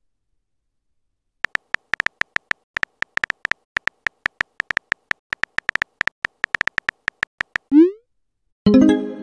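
Phone keyboard typing clicks from a texting-story animation: a fast, uneven run of short key taps starting about a second and a half in and lasting around six seconds. A quick rising swoosh follows as the message is sent, then a short chime as the message appears near the end.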